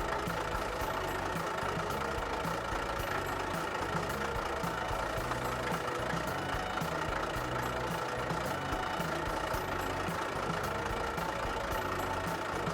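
Truck engine running steadily, an engine sound laid over a toy dump truck at work in the sand.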